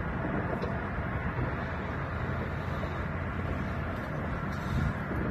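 Steady wind rumble on the microphone over open water, heaviest in the low end, with no clear engine tone.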